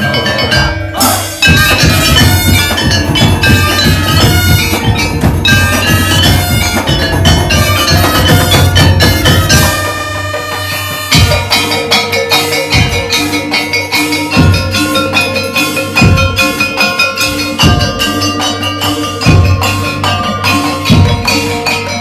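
A Madurese daul (tong-tong) ensemble playing: large barrel drums beating under trumpets and melodic tones. About eleven seconds in, the dense drumming gives way to held notes with spaced drum strokes about once a second.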